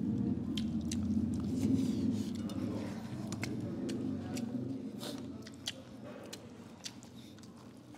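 Close-miked chewing and mouth sounds of people eating rice and curries by hand, with many sharp wet smacks and clicks. The chewing is fuller for the first five seconds or so, then eases off.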